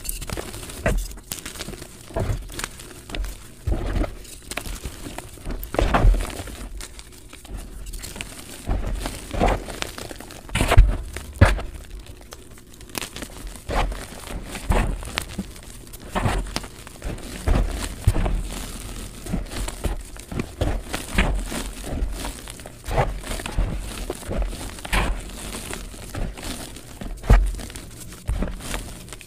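Hands crushing and crumbling blocks of dyed gym chalk into powder, then squeezing and rubbing the loose powder: irregular dry crunches and crackles with soft low thumps, played sped up.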